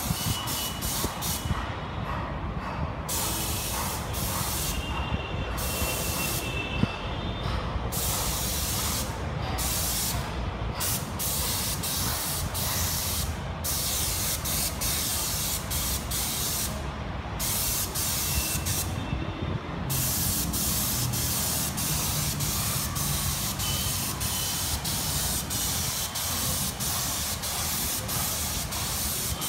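Paint spray gun hissing as it sprays exterior wall paint, the hiss cutting out briefly and restarting several times in the first two-thirds as the trigger is released and pulled again, then running on without a break. A steady low machine hum runs underneath.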